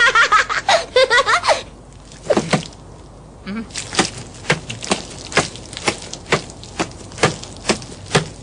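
Cartoon character hiccuping over and over, short sharp hics at about two a second. A brief burst of high, wavering giggling comes first.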